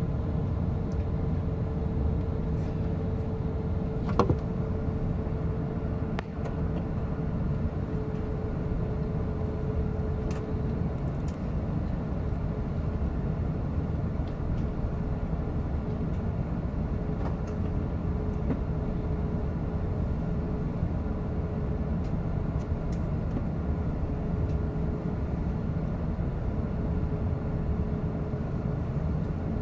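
Airbus A380 cabin noise during taxi: a steady low rumble of the engines at taxi power and the rolling aircraft, with a faint steady hum. A sharp click about four seconds in.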